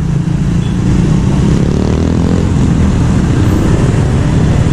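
Road traffic passing close by: motorcycle and car engines running in a steady low drone.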